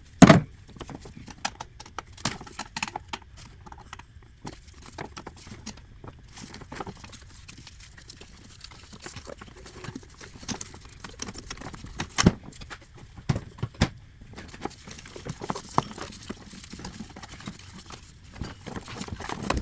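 Scattered sharp metallic clicks and knocks of a 3/8 ratchet and metal parts as the serpentine belt tensioner is levered back to release the belt. One loud knock comes just after the start and two more come about twelve and fourteen seconds in.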